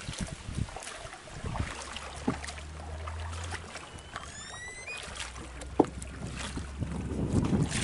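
A small boat paddled with a long single oar: splashes of the blade dipping and pulling through the water and knocks of the oar, over wind. A short rising squeak comes about four seconds in, and a sharp knock near six seconds.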